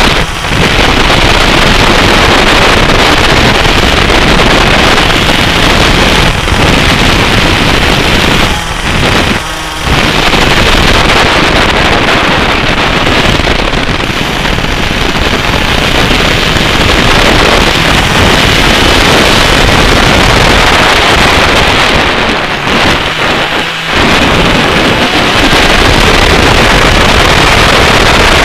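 Onboard a 125cc two-stroke racing kart at speed: the engine running hard under heavy, distorted wind buffeting on the microphone. The sound drops away briefly twice, about eight and a half seconds in and again about twenty-two seconds in, as the kart slows into corners.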